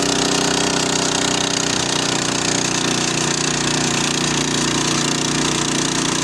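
Two-wheel tractor's small petrol engine running steadily, an even mechanical drone with no change in speed.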